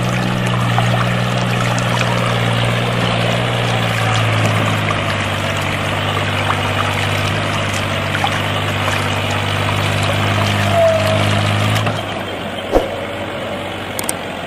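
Small motor running steadily as it drives water pumps, with water pouring and splashing from the pump outlets. The motor hum stops about twelve seconds in, and the water carries on a little quieter.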